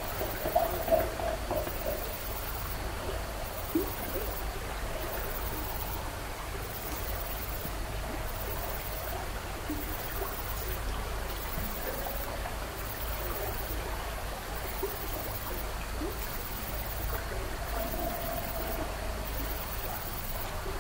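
Steady rushing, water-like noise, with a few faint knocks in the first few seconds and a faint drawn-out tone about 18 seconds in.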